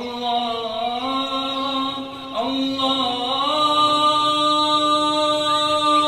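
A man singing long, drawn-out notes of an Arabic song without clear words, sliding between pitches and ending on one note held for about three seconds.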